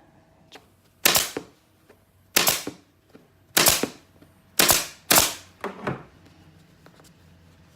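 Staple gun firing five sharp shots, about a second apart with the last two close together, fastening carpet to a thin board.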